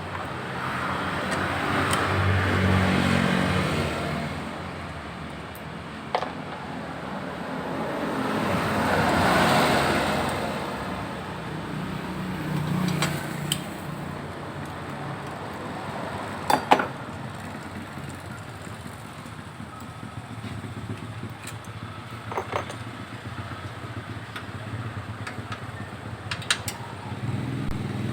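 Motor vehicles passing by on a road, two of them swelling up and fading away within the first ten seconds, over a low traffic hum. A few sharp metallic clicks of tools or parts being handled sound now and then, the loudest near the middle.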